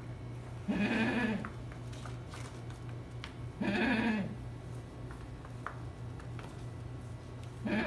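Ten-day-old Hollandi-breed goat kids bleating: three short calls about three seconds apart, the last one starting right at the end.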